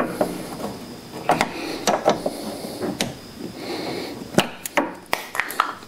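Small screwdriver prying at a plastic trim cap on the E36 BMW convertible: scraping, with several sharp clicks and taps.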